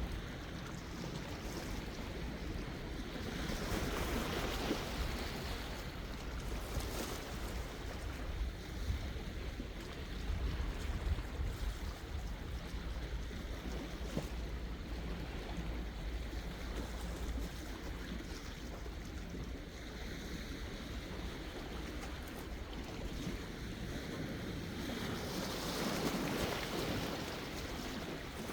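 Sea waves washing ashore, a steady hiss of surf that swells a few seconds in and again near the end, with a low rumble of wind on the microphone.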